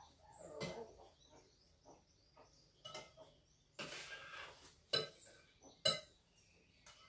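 Spoons and crockery clinking and scraping during a meal: scattered light taps, with two sharper clinks about a second apart a little past the middle.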